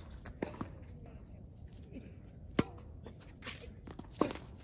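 Tennis balls being struck by rackets and bouncing on the court during a rally: a few sharp pops, the loudest about two and a half seconds in and again just after four seconds.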